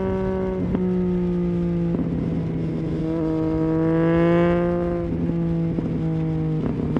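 Triumph Street Triple 675's inline-three engine through a Leovince GP 3-2 exhaust with dB killer, heard from the rider's seat on the move. The throttle eases just as it starts, then opens again; the engine note swells to its loudest about four seconds in and drops back a second later, with a few brief breaks in between.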